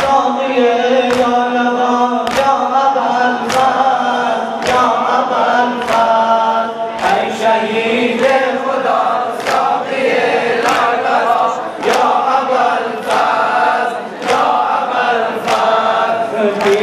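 Ritual Muharram chest-beating (sinezani): men chanting a mourning lament together, with a sharp slap of hands on chests in time, about once a second.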